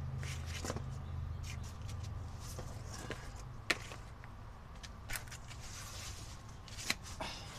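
Scattered clicks and taps of tools and parts being handled, two sharp clicks standing out, over a low hum that fades away in the first few seconds.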